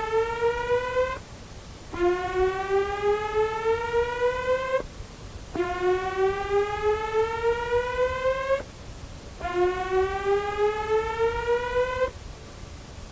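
Electronic alarm tone in a simulated emergency alert broadcast: a buzzy, pulsing wail that rises slowly in pitch over about three seconds, then breaks off and starts again low, repeated with short gaps. There are three full rises after the end of one already sounding.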